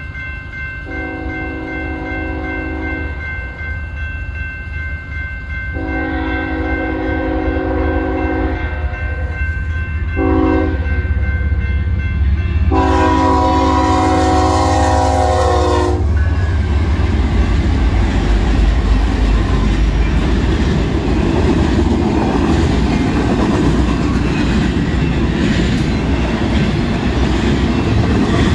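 Diesel locomotive air horn sounding the grade-crossing signal: two long blasts, a short one and a final long one, over the steady ringing of the crossing bell. From about halfway, the intermodal freight train passes the crossing with a loud rumble and clatter of wheels and double-stack container cars.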